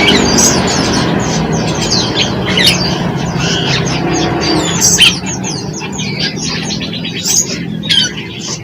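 Small songbirds chirping and calling rapidly, many short high chirps overlapping one another, over a steady low rumble that fades about halfway through.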